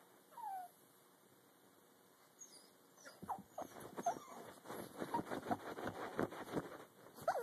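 Pug whining: one short falling whine, then from about three seconds in a quick, uneven run of short clicks and scuffs close to the microphone, broken by a few more brief whines.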